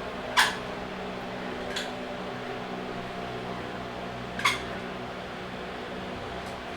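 Steady mechanical hum like a running fan, with three sharp knocks over it: a loud one about half a second in, a lighter one near two seconds, and another loud one about four and a half seconds in.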